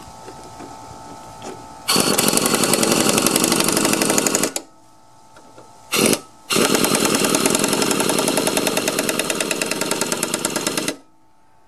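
Cordless impact wrench hammering rapidly as it tightens a mower blade bolt. The first run starts about two seconds in and lasts about two and a half seconds. A short blip comes about six seconds in, then a longer run of about four and a half seconds.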